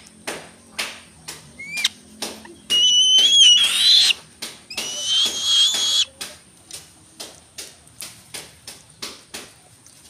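Young black-winged kite gives two shrill, whistled screeches, each over a second long, about three and five seconds in. Under the screeches runs a steady series of sharp taps, about two to three a second, as it pecks at food on the wooden ledge.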